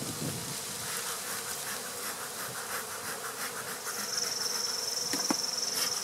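Honey bees buzzing around an open hive, a steady busy hum. A thin high steady tone joins in for the last two seconds.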